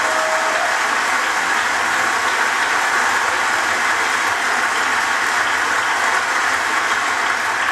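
A large congregation applauding steadily, easing off a little near the end.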